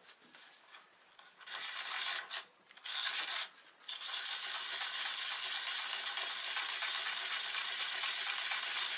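A carbide cutter rubbed round in circles on the 300-grit side of a diamond credit-card hone, giving a gritty, scraping hiss. There are two short strokes, then a steady run of rubbing from about four seconds in.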